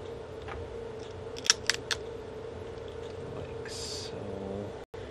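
Four quick, sharp clicks of metal tweezers against a MacBook Pro's internals as a cable is laid in place, over a steady hum. A brief hiss follows about four seconds in.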